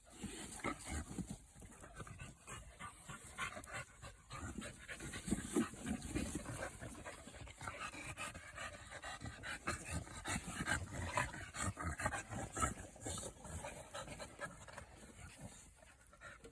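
Exotic bully puppy panting in quick, uneven breaths, easing off near the end.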